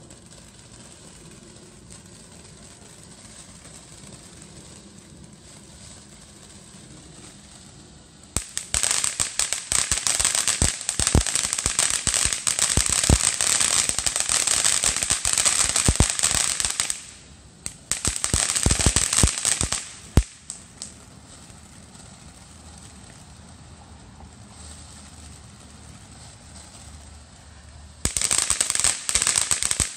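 Ground fountain fireworks spraying sparks with loud, dense crackling. The crackling starts about eight seconds in and lasts about nine seconds, comes back for a couple of seconds shortly after, and starts again just before the end, with quieter stretches in between.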